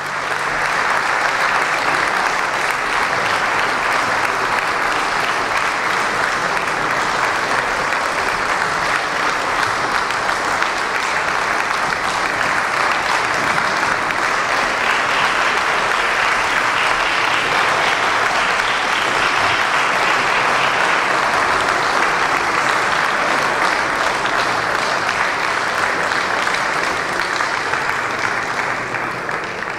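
Audience applauding steadily, a dense continuous clapping that fades away near the end.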